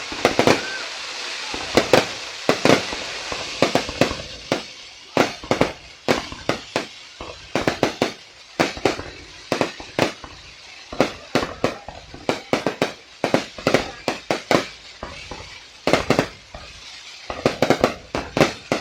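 Aerial fireworks display: a rapid, irregular barrage of sharp bangs and pops, many in quick clusters, over a crackling hiss that is heaviest in the first few seconds.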